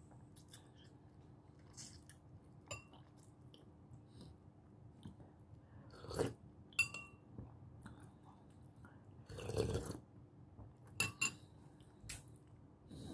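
Close-miked chewing and other mouth sounds of someone eating salmon sinigang with a metal spoon, with scattered small clicks. A few sharper, louder sounds come about halfway through and toward the end, including a brief noisy burst just before the last few seconds.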